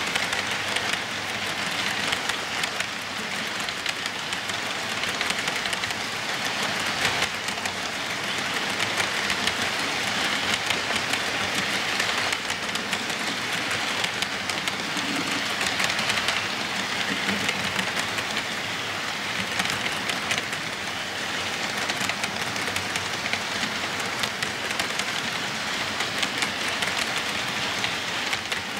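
HO-scale model freight cars rolling past on the track: a steady rattling hiss of small metal wheels on the rails, with fine rapid clicking.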